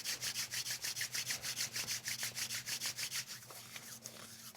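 Rapid rhythmic rubbing, several strokes a second, over a faint steady low hum; the rubbing grows weaker near the end.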